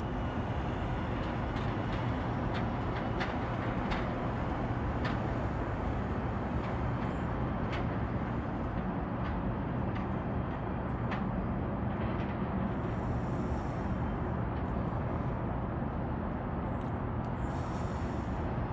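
Steady low rumble of city traffic with a faint constant hum, dotted with small faint clicks. Two short hisses come through, one about two-thirds in and one near the end.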